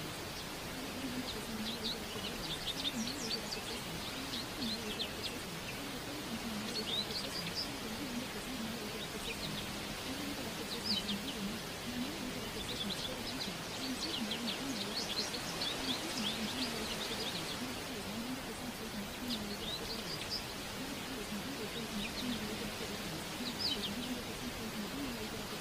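Birds chirping in clusters of quick, high calls every few seconds over a steady hiss, with a faint, muffled voice low underneath.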